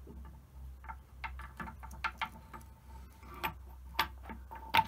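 Metal clicks and clinks from the steel shaft and bevel gears of a Holbrook lathe's feed reverse gear assembly as the shaft is worked into place by hand: an irregular string of small clicks, the loudest two near the end, with a short metallic ring.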